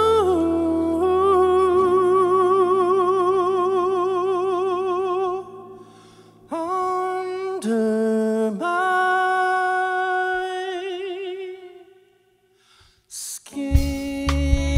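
A male singer, the group's bass, holds long high notes with a wide vibrato in a few phrases, mostly unaccompanied, with short breaks between them. After a near-silent pause about twelve seconds in, the full band comes back in loudly with a heavy bass beat near the end.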